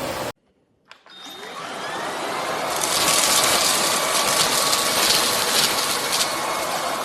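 Eureka RapidClean Pro NEC280TL cordless stick vacuum switched on with a click about a second in, its motor spinning up with a rising whine over a couple of seconds and then running steadily and loud.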